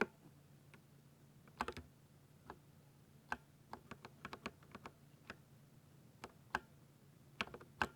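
Keys being typed on a 60% keyboard: slow, irregular keystroke clicks, some single and some in quick clusters.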